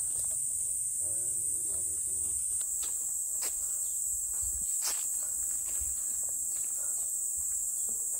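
A steady, high-pitched insect chorus that keeps on without a break, with a few faint clicks underneath.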